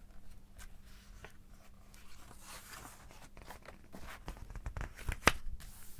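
Page of a large paper picture book being turned and smoothed down by hand: soft paper rustling and sliding with scattered light taps, and one sharp tap about five seconds in.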